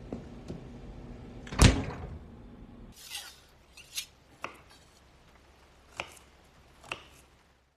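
A heavy thump about one and a half seconds in, the loudest sound, over a low hum that stops at about three seconds. Then a chef's knife chops red bell pepper on a wooden end-grain cutting board: four sharp chops, spaced unevenly.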